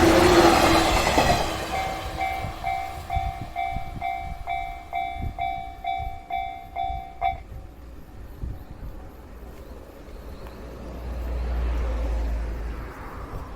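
A train passing a Japanese railway level crossing, its noise fading over the first second or two. The crossing's electronic warning bell rings on, about two dings a second, and cuts off suddenly about seven seconds in as the crossing clears.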